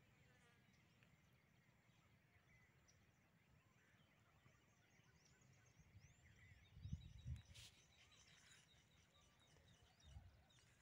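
Near silence: faint open-air ambience with distant birds chirping, and a couple of low bumps on the microphone about seven seconds in.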